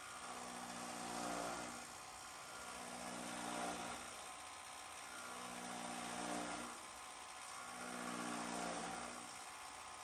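Electric chaff cutters running and chopping hand-fed bundles of straw. The cutting noise swells about every two and a half seconds as each bundle goes through the blades.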